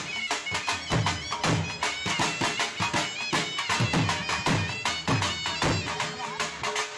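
Background folk-style music: a high wind-instrument melody with sliding, ornamented notes over a steady, fast drum beat.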